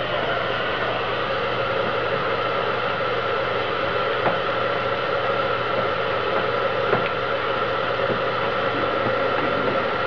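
Handheld electric heat gun running steadily: an even rush of blown air with a steady motor whine. It is heating vinyl tint film so the film can be stretched over a taillight.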